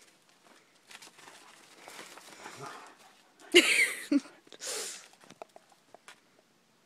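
Dogs tussling in snow, with faint scuffling, then one dog gives a short, loud cry about three and a half seconds in and a second shorter one about a second later.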